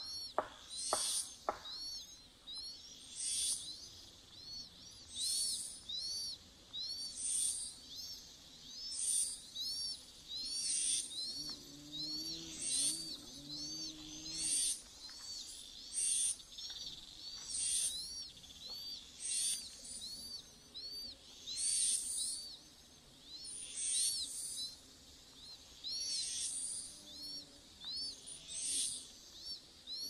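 High-pitched chirps repeated rapidly and coming in bursts every second or two: Chinese hwamei nestlings begging to be fed.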